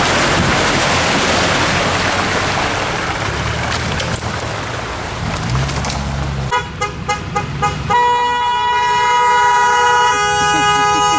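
Vehicle horn tooting: about five short beeps, then one long held blast. Before it, wind rushes over the microphone with an engine running underneath.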